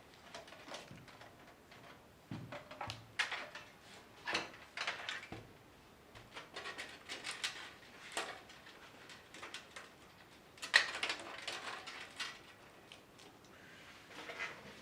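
Hands working on computer parts and cables inside a PC case: scattered clicks, taps and plastic rustles, with a sharper knock about eleven seconds in.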